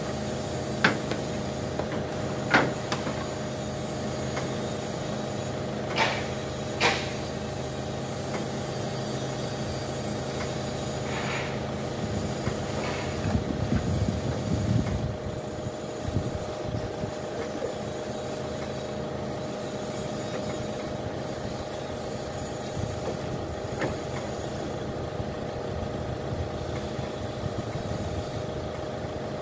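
Forklift engine idling steadily, with a few sharp knocks in the first seven seconds and a brief swell of louder engine rumble near the middle.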